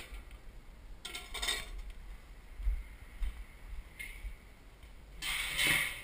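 Light metallic clinks and clatter as the lid of a drum smoker is handled, then a louder rustling clatter lasting under a second near the end.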